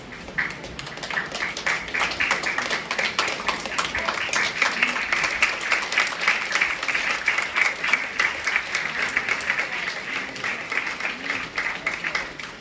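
Audience applauding: many hands clapping, building up over the first second or two and thinning out near the end.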